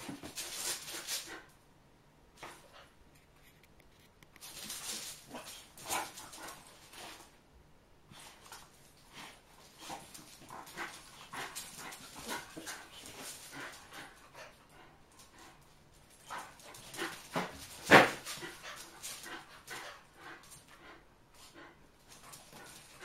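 Two dogs, a miniature bull terrier and a smaller brown-and-white dog, play-fighting: scuffling and panting in irregular bursts with short quiet gaps, and one loud sharp sound about three-quarters of the way through.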